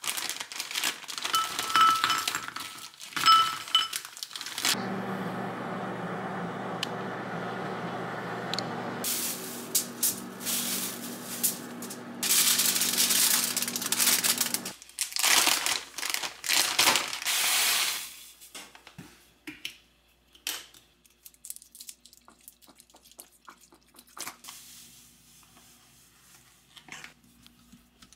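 Frozen raspberries tipped from a plastic zip bag, clinking into a glass bowl with the bag crinkling. Then a steady appliance hum runs for about ten seconds, joined by loud crinkling of a foil bread bag. Near the end come quiet clinks of a spoon stirring raspberries and sugar in a glass bowl.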